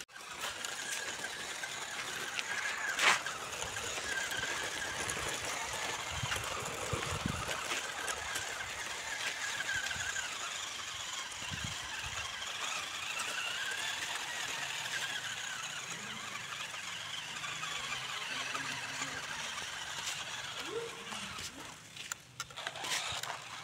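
Small electric RC rock crawler's motor and gearbox whining as it tows a loaded trailer, the whine wavering up and down in pitch over a steady hiss of tyres on gravel. A single sharp click about three seconds in.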